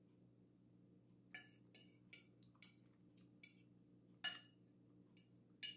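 A fork clinking lightly against a plate about seven times, each a short sharp tick, some with a brief ring, over a faint steady hum.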